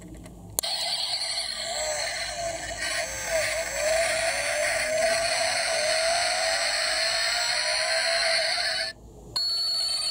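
Electronic engine start and revving sound effect played through the small speaker of a diecast toy Mercedes G-Class, with repeated rising and falling revs. It cuts off abruptly, then a shorter electronic sound plays after a brief pause.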